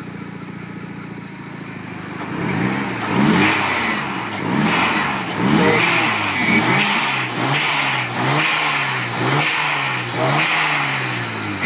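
Mazda RX-7 FD3S twin-turbo 13B rotary engine idling, then blipped about eight times in quick succession, the pitch rising and falling roughly once a second. Since the vacuum hoses were redone it makes an odd noise that the owner suspects is the air pump mooing, and which he says goes away at around 3,000 rpm.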